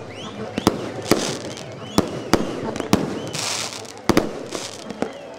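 Fireworks going off: sharp, irregular bangs of bursting shells and firecrackers, about two a second, with a short hissing crackle a little past halfway.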